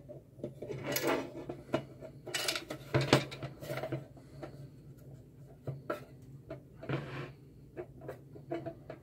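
The black sheet-metal case of a solder and hot air rework station being handled and turned over: scattered clicks, knocks and scrapes of metal on the bench, the loudest about one and three seconds in.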